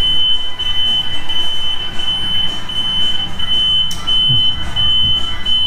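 Warning buzzer of an HT-700 hydrogen engine carbon cleaner giving a continuous high-pitched beep that pulses rapidly, over a low hum. It is the machine's alarm for running unfilled: there is no water or potassium electrolyte in it.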